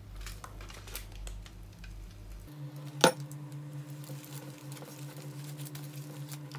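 Aluminium foil crinkling and rustling as a steam iron is pressed and slid over a foil-wrapped sandwich on a wooden board, with scattered small clicks and one sharp knock about three seconds in. A low steady hum runs underneath.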